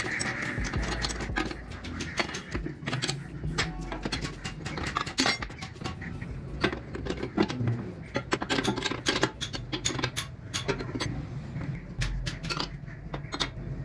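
Irregular metallic clinks, taps and knocks, like hand tools working on metal parts, over a low steady hum.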